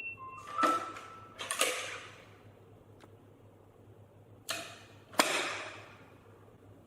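Tenon A2C push-pull smart door lock opening by password: a short electronic chime from the lock, then two quick mechanical rattles from the lock and its push-pull handle, each fading within about half a second. A few seconds later come two more, the last starting with a sharp click.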